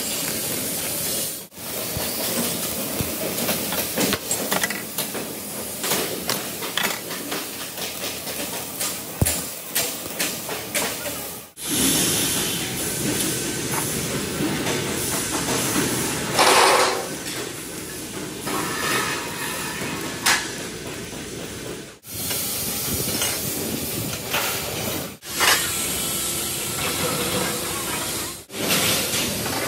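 Factory workshop noise from auto rickshaw production: a steady hiss with many sharp clicks and knocks of tools and metal, changing abruptly several times as the scene cuts.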